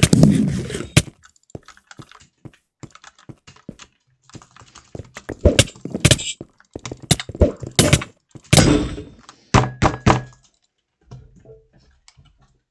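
An irregular series of sharp clicks and knocks, unevenly spaced, with a few louder thunks and short rapid clusters among them.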